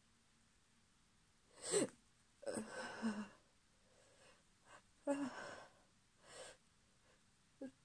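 A woman's sharp gasping in-breaths and stifled, held-back sneezes, several short bursts with pauses between, brought on by chhikni snuff.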